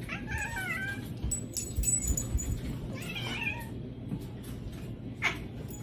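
Domestic cat meowing in wavering calls: one at the start, another about three seconds in and a short one near the end. Soft low thumps come in between.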